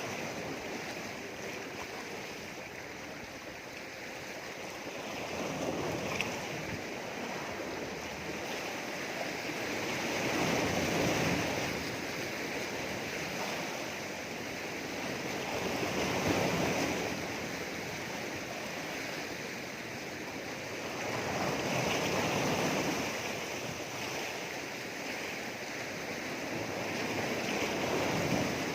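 Sea waves surging and breaking against rocks, swelling louder about every five to six seconds, five times.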